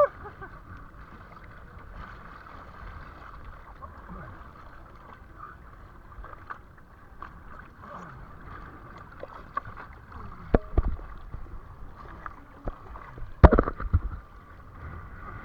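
Murmur of distant voices over steady background noise, with short louder calls about ten and a half and thirteen and a half seconds in.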